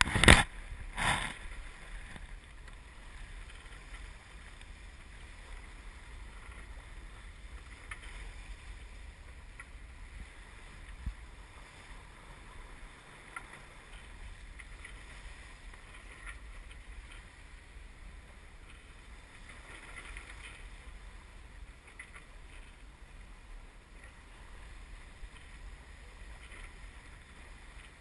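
A sailboat motoring in calm conditions: a steady low engine drone under an even wash of water noise. A brief loud noise comes in the first second.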